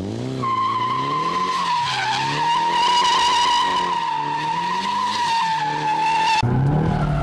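Nissan S14 Silvia drifting in tight circles: the tyres squeal in one long steady screech while the engine revs rise and fall as the throttle is worked on and off to hold the circle. The sound changes abruptly about six seconds in.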